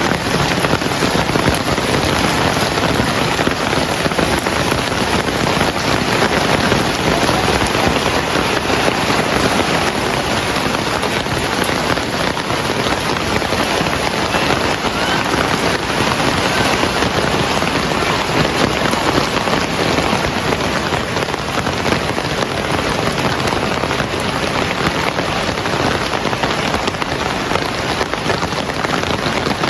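Heavy rain falling steadily and evenly, a dense continuous patter of drops on surfaces.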